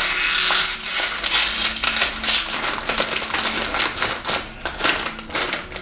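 Plastic snack bag of cheddar Goldfish crackers being pulled and torn open, the packaging crinkling and crackling with a louder rip at the start, dying down toward the end.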